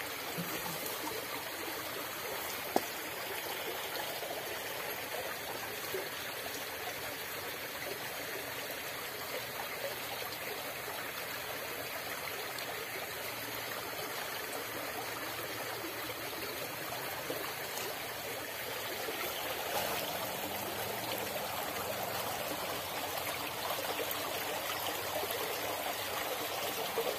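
Shallow rocky stream flowing and trickling over stones, a steady rush of water. A single sharp click about three seconds in.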